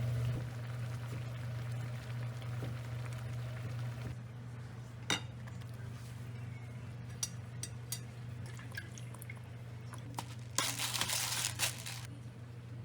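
Kitchen preparation sounds over a steady low hum: a sharp clink about five seconds in, a few light clicks of utensils and dishes after it, and a brief hiss of noise lasting about a second and a half near the end.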